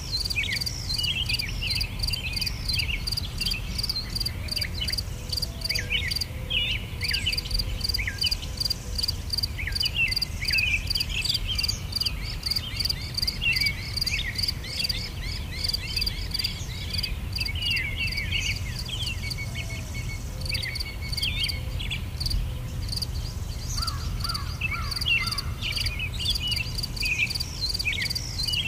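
Nature ambience: insects chirping in a fast, even pulse, with birds chirping over them and a steady low rumble underneath.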